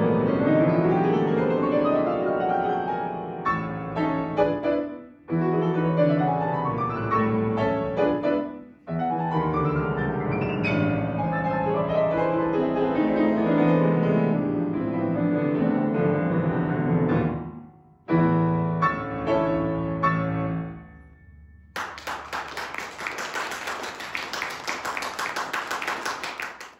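Steinway grand piano played solo: a classical piece with sweeping rising arpeggios and a few brief pauses, fading out about 21 seconds in. Clapping follows for the last few seconds.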